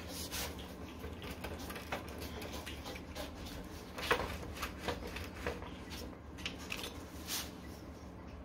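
Faint scattered clicks and knocks as a Xiaomi M365 electric scooter's front fork and steering stem are turned and rocked by hand, over a low steady hum.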